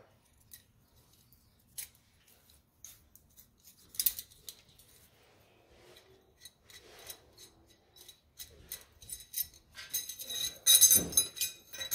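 Small steel parts handled at a drill press: scattered light clicks and taps of metal on metal, then a quick run of ringing metallic clinks near the end as a handful of thin steel rods is gathered up.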